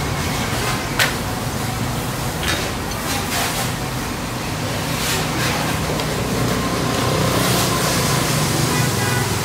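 Handling noise from an old amplifier being taken apart: a few sharp knocks and scrapes as a dirty circuit board and a finned metal heatsink are lifted out of the chassis, the sharpest about a second in. Under them runs a steady hiss with a low hum.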